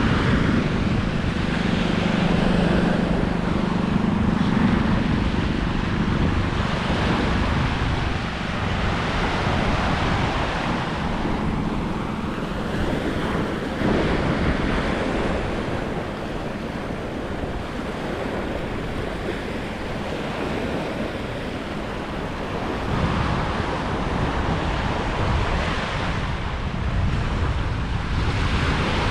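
Ocean surf washing on the shore, mixed with wind buffeting the microphone. A faint low hum sits under it in the first few seconds.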